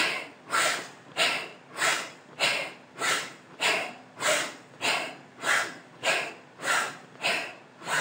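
A woman doing Bhastrika (bellows breath), forcing the breath in and out through the nose with her belly pumping. The breaths come in an even rhythm of about one and a half a second, each a sharp rush of air that quickly fades.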